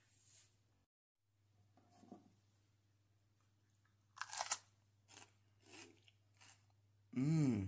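A person biting into raw cauliflower: one loud crunch, then three smaller chewing crunches. A short vocal sound near the end rises and falls in pitch.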